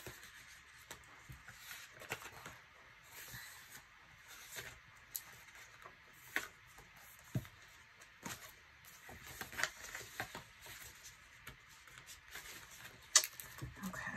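Paper sticker-book pages and sticker sheets being flipped and handled: intermittent light rustling with scattered soft taps, the sharpest tap near the end.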